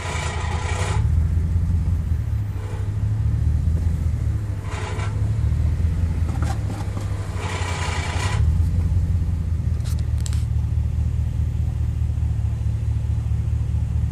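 2006 Chevrolet Silverado running with a steady low rumble, and an odd raspy scraping noise coming and going in short spells about five times, then stopping for the last few seconds.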